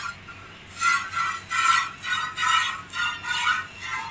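A cow being milked by hand into a steel bucket: rhythmic hissing squirts of milk striking the nearly empty metal pail, starting about a second in and coming about two a second.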